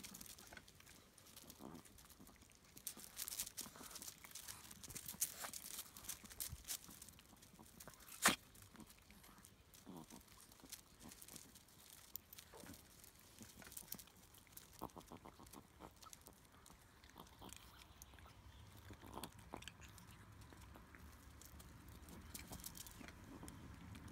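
Small dogs eating dry kibble from steel bowls: scattered quiet crunching and clicking as they chew and nose the food, with one sharper click about eight seconds in.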